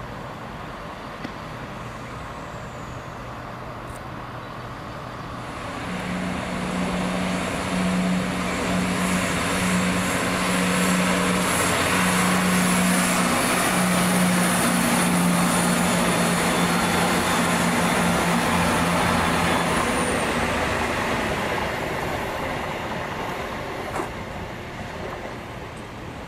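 CrossCountry Class 170 Turbostar diesel multiple unit passing close. Its diesel engine note and the rolling noise swell up about six seconds in and hold steady with a high whine over them. The sound fades away from about twenty seconds in.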